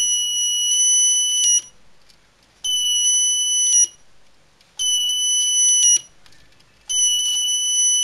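Burglar alarm circuit's horn sounding a steady high-pitched tone in four bursts of a second or so each, roughly every two seconds: the alarm has been triggered on test.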